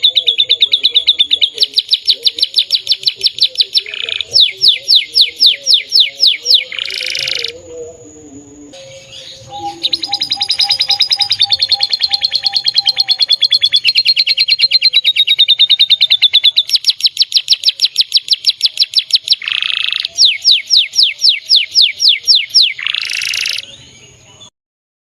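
Domestic canary singing loudly: long phrases of fast trills of rapidly repeated high notes, with a few short breaks, stopping shortly before the end.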